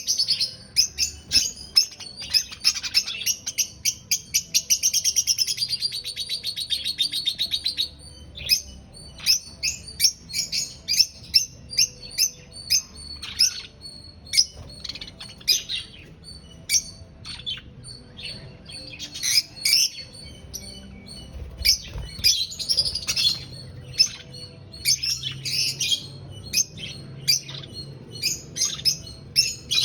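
Several lovebirds chirping: a dense run of rapid, high, repeated chirps for about the first eight seconds, then sharp single chirps and short clusters of chirps.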